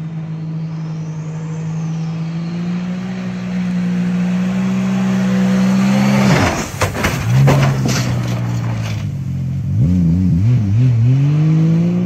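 A motorboat's engine running at speed as it approaches, its note rising slowly, then passing close about six seconds in with a sharp drop in pitch and a brief rush of spray. Afterwards the engine note wavers up and down as the boat moves away.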